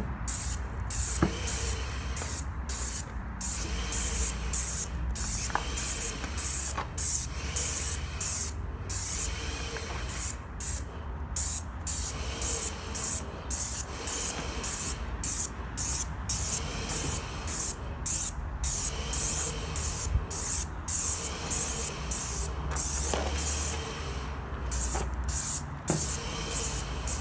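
Wagner airless paint sprayer spraying fence stain in short bursts of hiss as the trigger is pulled and let go, about one burst a second, over a steady low hum. This is the light mist coat going onto the wood.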